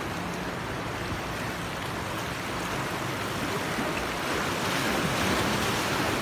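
Sea surf washing and breaking against the boulders of a rock breakwater, a steady rushing wash that swells a little about two-thirds of the way in.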